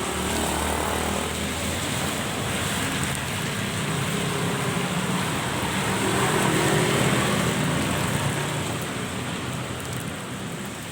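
Steady rain falling, an even hiss with a low rumble underneath that swells about six seconds in.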